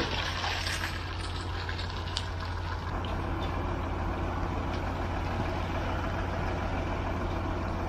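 Boom concrete pump truck's diesel engine running steadily: a low, even drone.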